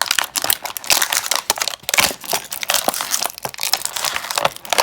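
Packaging crinkling and crackling as it is handled and opened: a dense, irregular run of quick crackles.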